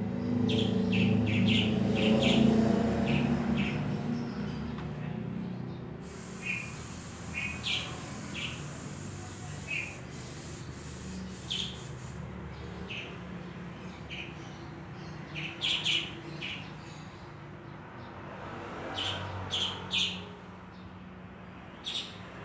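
Small birds chirping in short, repeated calls throughout. A low rumble is loudest in the first few seconds, and a steady hiss runs from about six seconds in to about twelve.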